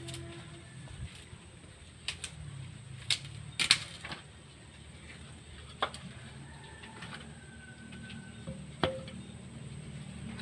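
Wooden boards and planks knocking against each other and the wooden wall as they are moved by hand: a scattering of short, sharp knocks, the loudest about three and a half seconds in and another near nine seconds.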